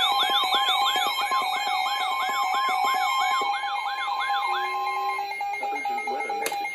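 Several weather alert radios sounding their alarms together for a severe thunderstorm warning: a siren-like rising sweep repeating about three times a second over steady alert tones. The sweeps and one tone stop about five seconds in while another tone runs on, and a sharp click comes near the end.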